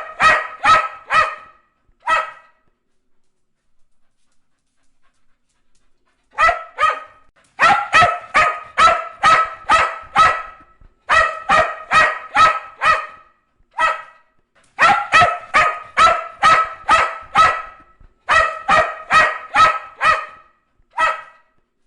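A dog barking in quick runs of about three barks a second. After a short first run there is a pause of a few seconds, then longer runs of barking with brief breaks.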